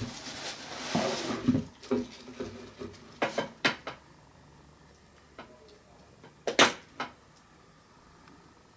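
A cardboard box being opened and rummaged: the flaps rustle and scrape for the first two seconds, then hard objects inside knock and clink in two short clusters, about three seconds in and again near seven seconds, the second the loudest.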